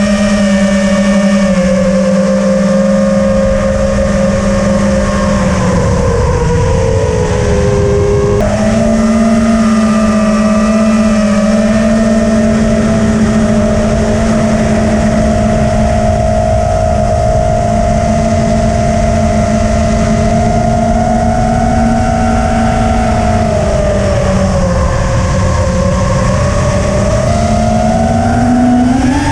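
Motors and propellers of a 5-inch FPV quadcopter whining steadily in flight, over a rush of wind. The pitch sags about six seconds in and again a few seconds before the end, then climbs sharply at the very end.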